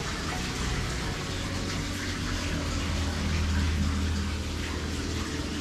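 Water pouring steadily into an outdoor bath, with a low steady hum underneath.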